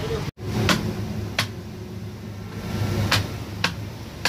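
Cleaver chopping lamb on a wooden tree-stump block: four sharp knocks at uneven intervals over a steady low hum, after a brief cut-out of the sound near the start.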